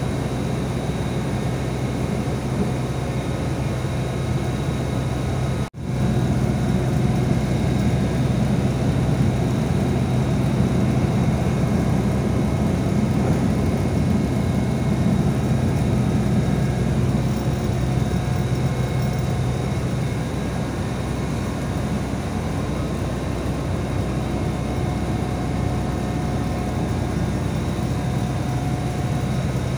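Steady engine and road noise of a city bus, heard from inside the cabin while it drives, with a faint steady whine over the low hum. The sound cuts out for an instant about six seconds in.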